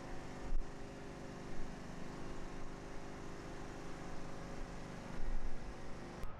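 An engine idling steadily at an unchanging pitch, with a few low thumps.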